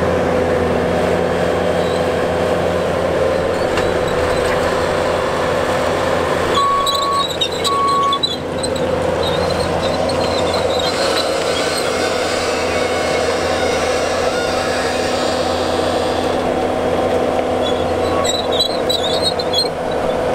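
Diesel engine of a compact track loader running steadily as it handles a heavy root-balled tree, with high squeals from its tracks about seven seconds in and again near the end. Two short beeps sound about seven seconds in.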